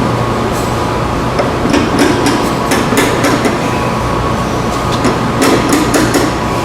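Metal parts knocking and clanking in two rapid clusters as a driveshaft is worked back up into place under a car, over a steady shop hum.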